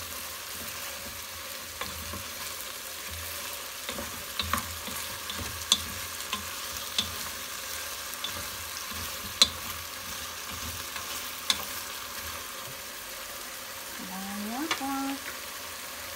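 Chicken pieces with garlic, onion and ginger sizzling in oil in a nonstick pot, stirred with a wooden spatula, with a few sharp clicks of the spatula against the pot. The chicken is being sautéed at the start of a chicken curry.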